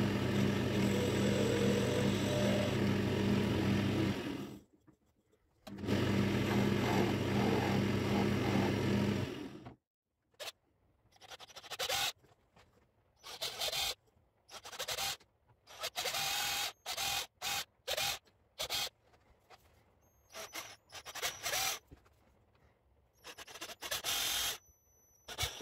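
Wood lathe running with a tool cutting the turned mahogany, in two steady spells of about four seconds each. Then a cordless drill bores small leg holes into the mahogany in many short bursts, starting and stopping every second or so.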